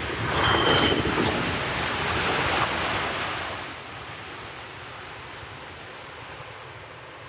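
Jet noise from a landing Boeing 787-9: a loud rush that swells, holds for a few seconds and fades away about four seconds in, leaving a steady hiss.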